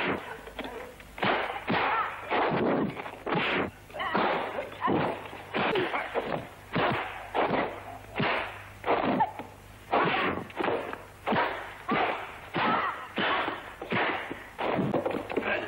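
Dubbed fight sound effects from a 1970s kung fu film: a fast, continuous run of punch and kick hits, about two a second, each a sharp whack with a short tail.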